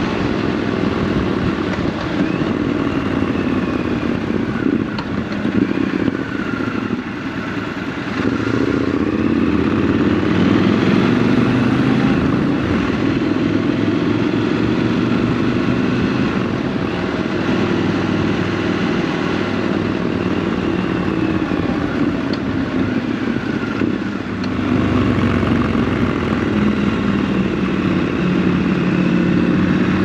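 Triumph Scrambler 1200 XC's parallel-twin engine running while riding, heard from the rider's seat; its pitch rises and falls with the throttle, and its loudness drops briefly about eight seconds in and again just before halfway through the last third, then picks up again.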